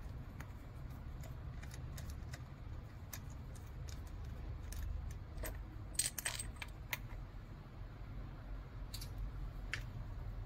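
Small metallic clicks and clinks of a wheel wrench on the wheel nut and hub of a toy RC car as the wheel is taken off, with a cluster of sharper clinks about six seconds in, over a low steady hum.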